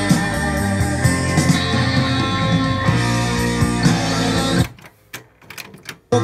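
Rock music with guitar playing back from a cassette in a Kenwood dual cassette deck. About four and a half seconds in, the music cuts off; a few sharp clicks of the deck's transport buttons and mechanism follow, and the music starts again just before the end.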